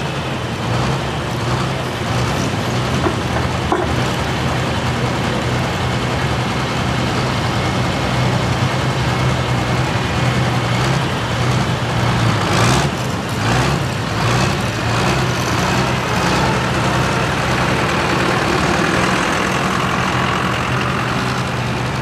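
Ford 9000 pulling tractor's turbocharged diesel engine idling with a steady low drone, with a brief clatter about halfway through.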